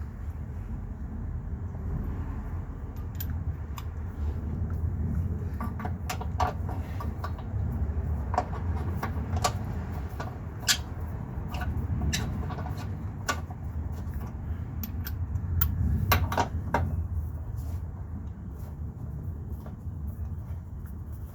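Irregular metallic clicks and clinks of bolts and hand tools being handled while engine-mount bolts are started and run in, most of them in the middle of the stretch with a quick cluster near the end, over a low steady rumble.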